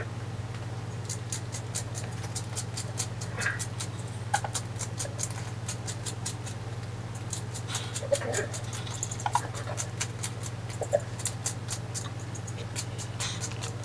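Plastic garlic-and-pepper seasoning grinder being twisted over a salmon fillet: runs of quick dry clicks, with a few short high squeaks mixed in.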